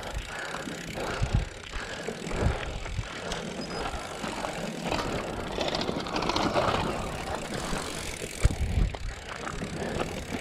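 Mountain bike rattling and scuffing over a rough, rocky dirt road, with wind buffeting the microphone and occasional knocks.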